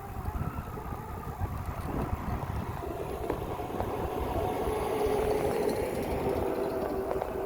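Wind and road rumble on the phone's microphone while riding an electric bike, with a steady hum that grows louder about halfway through and eases near the end.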